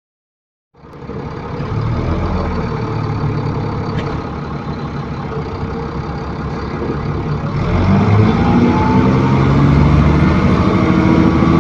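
ADL Enviro400 Trident double-decker bus with Voith automatic gearbox, heard from on board: the engine runs steadily near idle, then from about eight seconds in it speeds up and gets louder with a rising whine as the bus pulls away.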